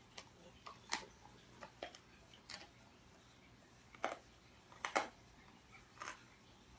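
German Shepherd crunching a raw frozen chicken foot: short, sharp crunches at irregular intervals, roughly one a second, the loudest two a little past the middle.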